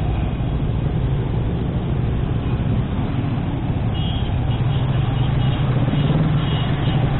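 Motorcycle engine running at low speed through slow, jammed traffic, a steady low drone, with the noise of the surrounding cars and motorbikes.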